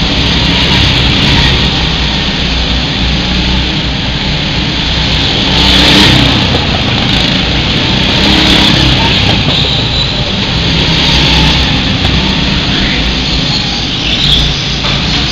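Go-kart engines running as several karts race past on the track, the sound swelling with each pass, loudest about six seconds in.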